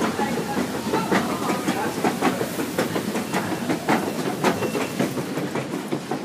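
London Underground Victoria line train running along the platform: wheels clattering over the rails in irregular sharp clicks and knocks, over a steady hiss.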